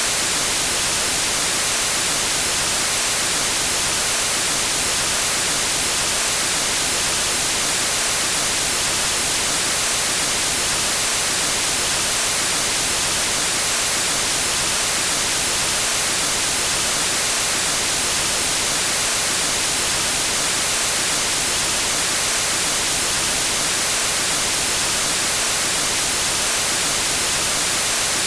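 Steady, loud hiss of television static (white noise), even and unchanging, heaviest in the high treble.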